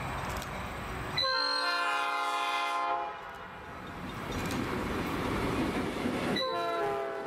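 EMD GP38 diesel locomotive's air horn sounding a multi-note chord in two long blasts as it passes, the first about a second in and lasting nearly two seconds, the second starting near the end. Between the blasts the passing train rumbles on the rails.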